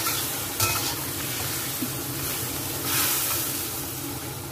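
Whole chicken sizzling in a wok of hot oil and water, a steady hiss that swells briefly about three seconds in, with a single short knock about half a second in.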